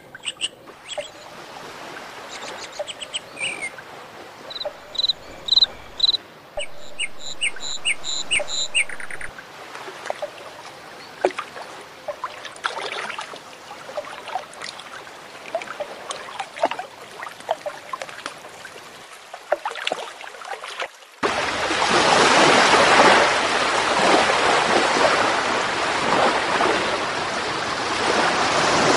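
Small birds chirping in series of short, high repeated notes over a soft background hiss. About two-thirds of the way through, this cuts abruptly to loud, steady rushing water.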